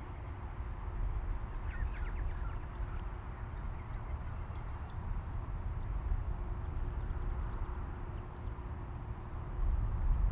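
Wind rumbling on the microphone, with the faint steady hum of the small electric RC plane's motor and propeller overhead. A few short bird chirps come about two seconds in and again near the middle.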